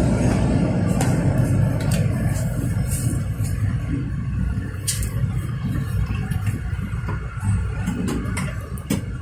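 Coach bus engine rumbling low and steadily, heard from inside the passenger cabin, growing gradually quieter, with a few light clicks.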